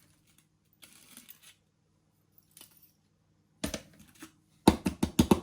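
Gritty mineral potting substrate (pon) rattling as it is scooped and poured, with a run of quick sharp rattles near the end.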